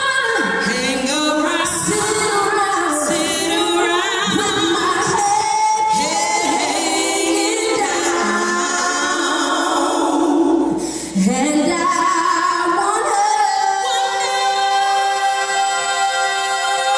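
A group of singers singing together with no instruments clearly heard, with a short break about eleven seconds in and then a long held chord to finish the phrase.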